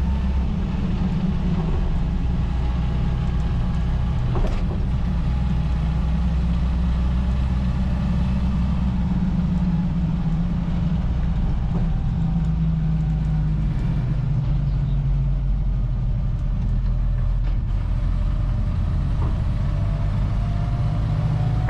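Land Rover Series 3 driving along, its engine and drivetrain giving a steady low drone. A faint whine comes from the old straight-cut gearbox.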